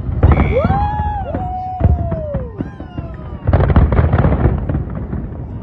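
Aerial fireworks exploding in quick succession, a steady rumble of bangs and crackles. Several long rising-then-falling whistles sound in the first two seconds. The bursts thin out in the middle, then come thick and fast again over the last two seconds.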